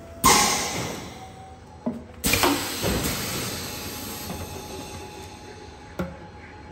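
Semi-automatic PET bottle blowing machine venting compressed air: two sudden loud hisses about two seconds apart, each tailing off over a second or two. A couple of sharp pneumatic clicks fall between and after them.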